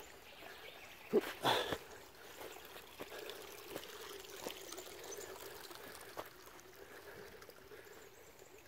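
Shallow creek water trickling faintly and steadily over a sandy bed, with a couple of brief scuffs about a second in.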